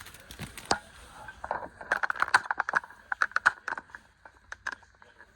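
Vinyl sticker sheet and its backing film being handled and picked at: a run of light, irregular clicks and crinkles, busier from about a second and a half in.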